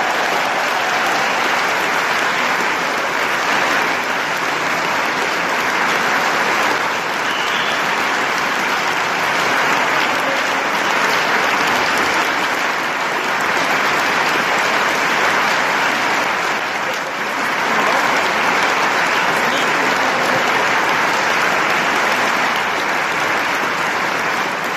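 Audience applauding, a long, steady round of clapping that dips briefly about seventeen seconds in.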